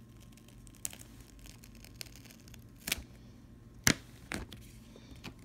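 Paper J-card insert being lifted off a steel Blu-ray case: light paper handling with four sharp clicks, the loudest a little under four seconds in.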